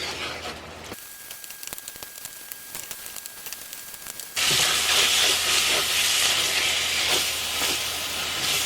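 Sloppy joe mixture of ground beef, vegetables and cornstarch-thickened beef broth sizzling in a cast iron pan as the broth cooks down and thickens. The sizzle is fairly quiet at first and turns much louder about four and a half seconds in.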